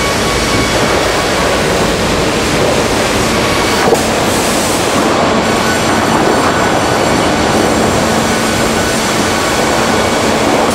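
Loud, steady industrial noise of a LINCK timber profiling line, its cutting heads machining a squared timber beam as it feeds through. There is a single brief knock about four seconds in, and a faint steady hum joins in the second half.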